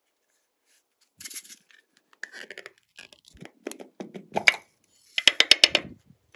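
Hands squishing and pressing glossy slime, with wet clicks and pops from trapped air. The sounds come in irregular bursts and end in a fast run of sharp clicks near the end.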